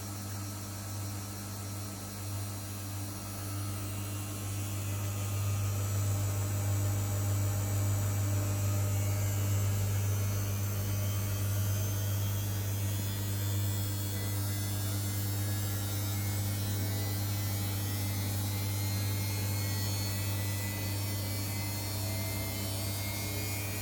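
Samsung washing machine in the final spin of a woolens cycle: the drum and motor give a steady low hum that grows louder over the first several seconds and then holds, with a faint higher whine slowly rising in pitch as the drum gathers speed.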